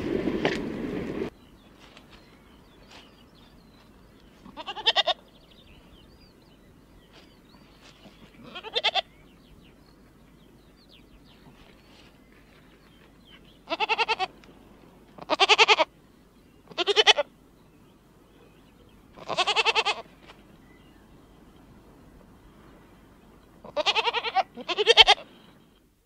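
Goat kids bleating: about eight wavering bleats spread a few seconds apart, the last two close together.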